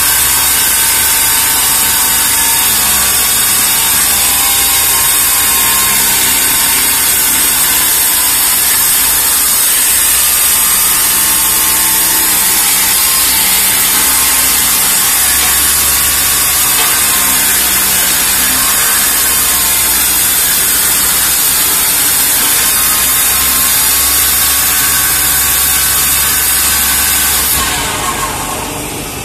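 A CRT cutting machine's cutting head running against the glass of a CRT picture tube as the tube turns on its turntable: a loud, steady, high-pitched cutting noise over a low motor hum. Near the end the cutting stops and the motor winds down with a falling pitch.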